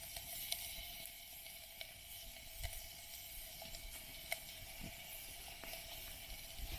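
Sausage sizzling in its own fat in a steel camping mug over a wood fire: a steady faint hiss with scattered sharp crackles from the fire.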